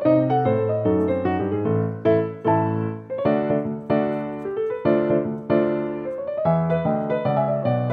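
Background piano music: a steady run of single struck notes carrying a melody.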